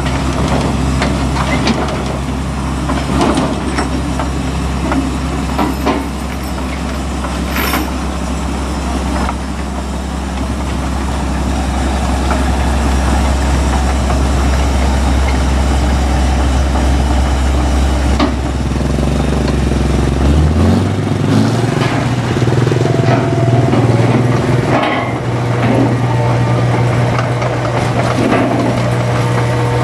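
Rice combine harvester's engine running as the machine drives off, with scattered clanks. About two-thirds of the way in, the deep drone drops away and a higher steady hum takes over.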